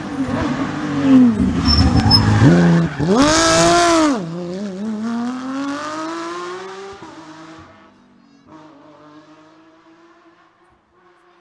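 Porsche 997 GT3 rally car's flat-six engine at full race pace, loudest as it passes in the first four seconds, its pitch dropping and rising through gear changes. It then accelerates away, rising in pitch, and fades to a faint distant engine after about eight seconds.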